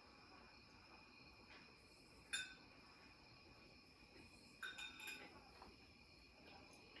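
Near silence: faint steady high tones, with one sharp click about two seconds in and a short run of light clinks around five seconds in.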